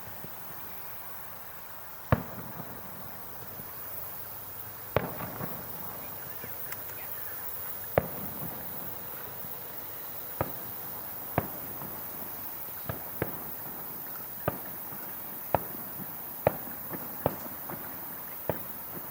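Aerial fireworks shells bursting in single sharp bangs, a few seconds apart at first and coming faster in the second half.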